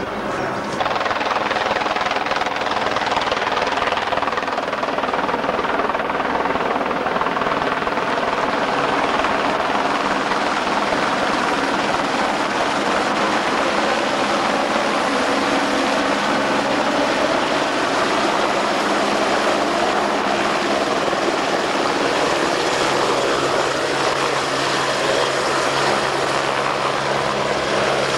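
Light helicopter's rotor and engine running steadily as it descends and lands on grass. The rotor keeps turning on the ground near the end, with a steadier low hum.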